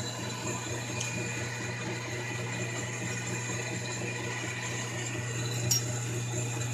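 Metal lathe running steadily while turning brass stock: a low motor hum under a whirring noise, with a couple of faint sharp ticks.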